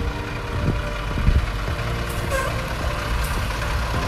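School bus engine running with a steady low rumble.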